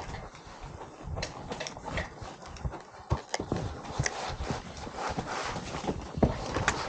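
Irregular knocks and taps, about ten over several seconds, from a wall board being pushed and fitted into place against the wall.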